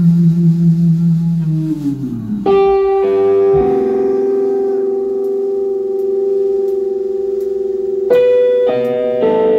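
Live instrumental band playing a slow, held passage on electric bass and keyboards. A low wavering note slides down about two seconds in, then long sustained notes ring, with new notes joining near the end.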